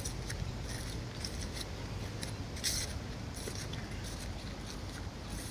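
Faint, scattered crackles and rustles at uneven intervals over a low steady rumble.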